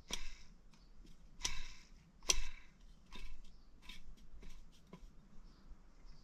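Irregular clicks and light knocks of a disassembled blender's motor and plastic parts being handled, about seven of them, a couple with a short scrape, the loudest about two seconds in.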